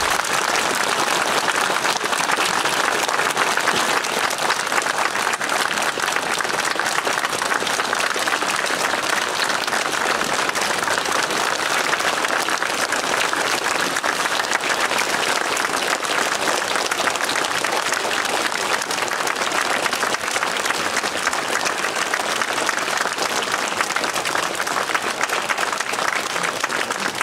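A large crowd applauding, many hands clapping at a steady level without a break.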